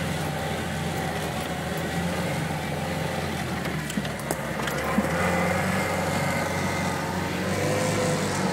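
Car engine running steadily as the car crawls over a rutted, muddy field track, heard from inside the cab. A few sharp knocks come about four and five seconds in.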